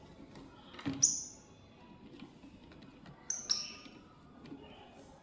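Lovebird giving short, sharp, high chirps: one about a second in and two close together around three and a half seconds in, with a soft knock just before the first.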